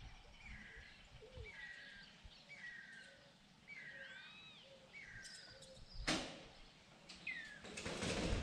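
A bird calling a short falling whistled note over and over, about once a second. About six seconds in there is a sudden loud burst of noise, and near the end a longer noisy rush.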